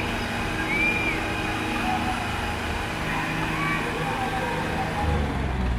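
Two diesel tractor engines, a Mahindra Arjun Ultra-1 555 DI and a John Deere, running hard under load as they pull against each other in a tractor tug-of-war, with a louder low rumble near the end. Shouts from the crowd come over it.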